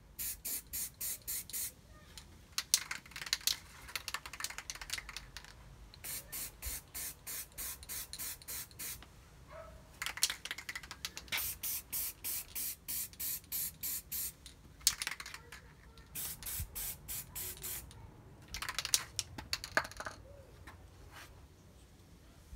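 Aerosol spray can of primer spraying in short bursts, about four a second, in four runs with pauses between them. Sharp clicks and rattles come between the runs.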